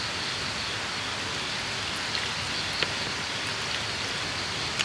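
Water pouring steadily from a bottle into a protein-shake shaker bottle, a continuous splashing rush.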